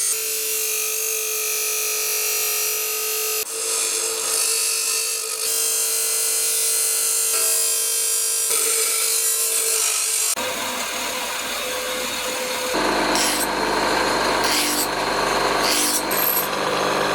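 Steel being shaped by grinding and filing for a knife, heard in a few short cuts with a steady whine under the noise; in the last few seconds it turns into a run of separate, repeating rasping strokes.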